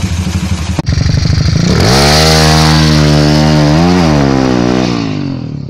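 Yamaha Vega ZR's small four-stroke engine idling, cut off abruptly about a second in. A motorcycle engine then revs up to a high, steady pitch, wavers briefly, and fades away near the end.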